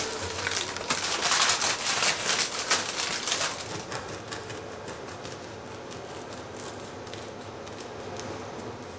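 Serrated bread knife sawing through the crisp crust of a homemade artisan loaf on a wooden board: a dense, crackling rasp, loudest in the first three or so seconds, then quieter as the cut goes on.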